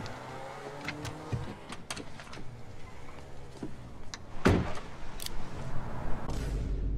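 A run of sharp clicks and knocks over a low, steady hum, with one louder thump about four and a half seconds in.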